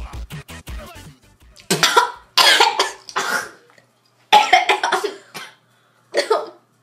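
Two girls coughing and spluttering in four rough fits, having just gulped a smoothie blended from deliberately horrible ingredients. A background music beat stops about a second in.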